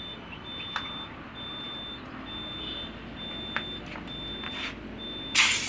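A high, steady electronic beep repeating about once a second, each beep about half a second long, with a short loud hiss about five seconds in.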